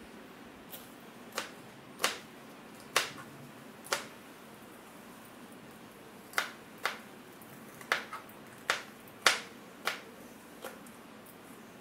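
Kitchen knife chopping green bell peppers into large pieces, each cut ending in a sharp knock on a plastic cutting board: about a dozen irregular chops with a pause near the middle.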